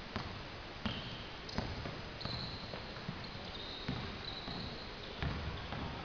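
Basketball bouncing on the court, a handful of irregularly spaced thuds, with short high-pitched sneaker squeaks from players moving on the floor.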